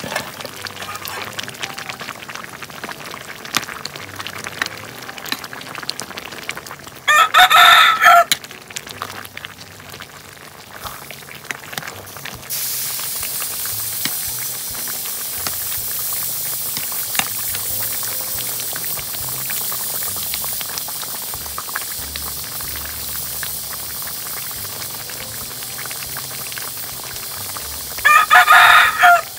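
A rooster crows twice, about seven seconds in and again near the end. Underneath, a large pot of soup bubbles at the boil, and from about twelve seconds a steady hiss joins it.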